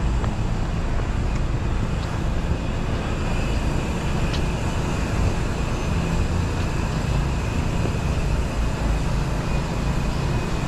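Steady city street noise: a low rumble of traffic.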